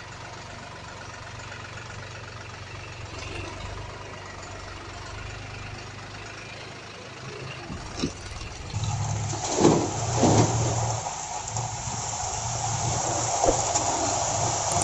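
Engine running steadily at a low hum, growing louder and rougher from about nine seconds in, with two loud rattling bursts around ten seconds.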